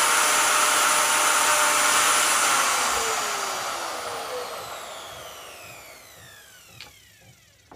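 Vevor 5120 plunge router's 15-amp motor running at speed, then switched off about two and a half seconds in and winding down, its whine falling steadily in pitch and fading over about five seconds. A couple of light clicks near the end.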